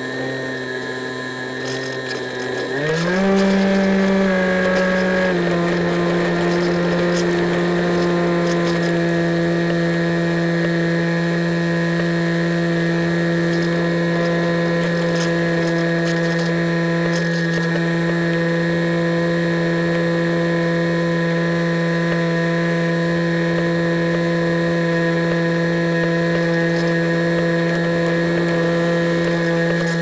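Electric motor and pusher propeller of an EasyStar foam RC plane droning steadily in flight, picked up by the onboard FPV camera's microphone. The pitch rises as the throttle is opened about three seconds in, eases back slightly a couple of seconds later, then holds steady.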